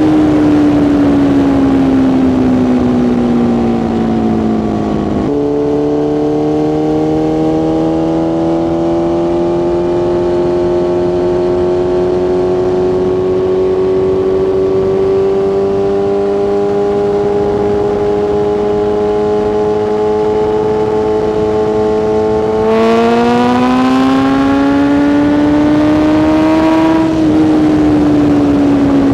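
BMW S1000RR inline-four engine under way. The revs fall for about five seconds, then jump up on a downshift. They hold nearly steady, creeping slowly higher, through a long cruise, and near the end rise again as the bike accelerates.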